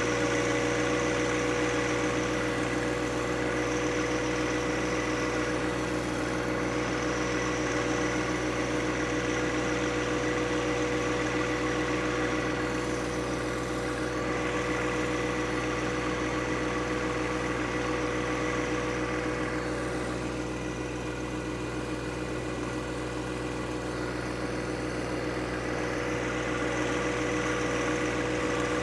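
John Deere subcompact tractor's three-cylinder diesel engine running steadily as it pulls a box blade through wet soil, with a steady whine over the engine note. The sound drops off a little past the middle and then comes back up.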